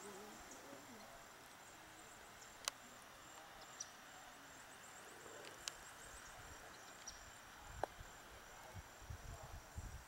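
Faint outdoor ambience: insects giving a steady high-pitched trill, broken by three short sharp clicks, with low rumbling from wind or handling on the microphone near the end.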